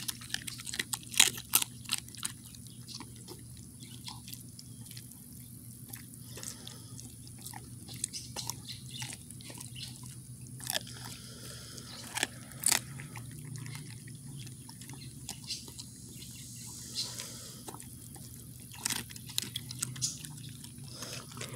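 An old dog chewing raw rabbit meat and bone: scattered wet crunches and clicks of teeth, slow and intermittent, with bunches of them near the start, around the middle and near the end.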